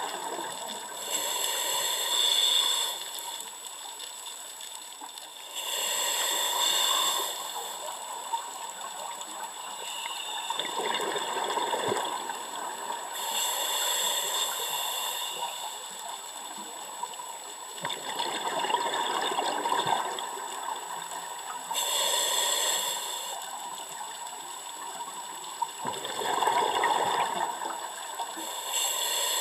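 Scuba diver breathing through a regulator, heard underwater: hissing inhalations alternating with rushing bursts of exhaled bubbles, several breaths a few seconds apart.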